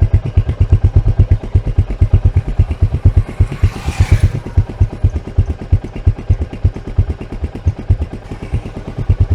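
Royal Enfield Meteor 350's single-cylinder engine idling through its stock exhaust, heard right at the outlet: a steady, even beat of low exhaust pulses. A short hiss joins in about four seconds in.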